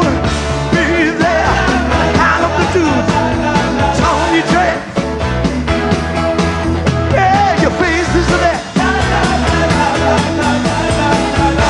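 Live rock band playing a full-band rock song with a steady beat, with voices singing over it.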